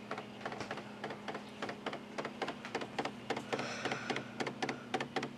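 A Brother Intellifax 620 thermal fax machine printing a received fax. Its stepper motor advances the paper one line at a time in quick, evenly spaced clicks, several a second, over a steady low hum. It is slow going.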